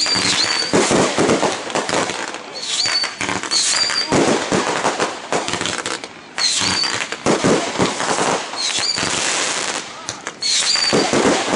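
Fireworks going off in a rapid series of crackles and pops, in clusters every second or two.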